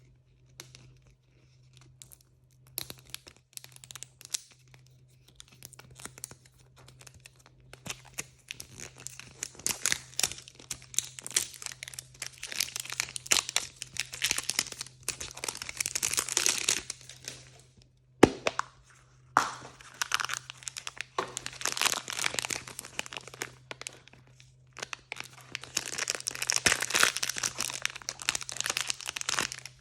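Plastic foil blind-bag packaging being torn open and crinkled by hand, in long bursts of crackling rustle, with one sharp snap a little past halfway.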